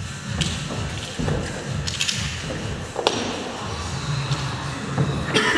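Hands and climbing shoes knocking against the holds and panels of an indoor climbing wall as a climber moves up fast: a few sharp thuds and taps, a second or more apart.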